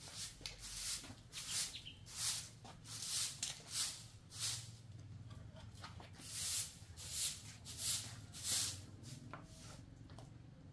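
A straw broom sweeping a concrete floor in a steady rhythm of brushing strokes, about one every half second or so. There is a short pause midway, and the sweeping stops near the end.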